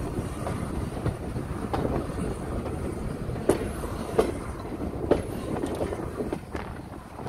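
Train passing on the rails with a steady rumble, its wheels clicking sharply over rail joints several times, the loudest clicks in the middle.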